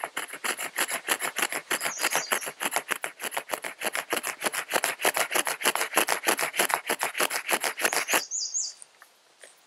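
Saw teeth on the spine of a Tracker knife rasping back and forth across a green-wood stick, cutting a notch for paracord. Quick, even strokes, about six a second, that stop about eight seconds in.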